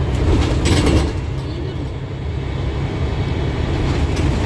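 Steady low rumble of a moving bus's engine and tyres, heard from inside the passenger saloon, with a brief louder burst of noise a little before a second in.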